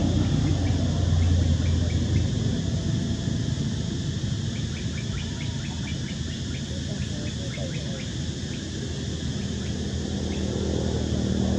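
Outdoor ambience: a steady low rumble under a high, even insect drone, with short chirps repeating a few times a second.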